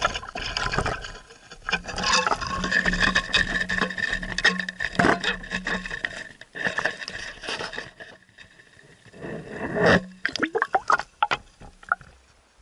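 Close scraping, rubbing and rapid clicking handling noise while a hooked fish is landed, with a low steady hum for a few seconds after the start and again briefly near the end.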